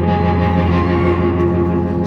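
Live rock band playing between sung lines: a low sustained bass note under held guitar notes, the amplified sound as caught at a concert.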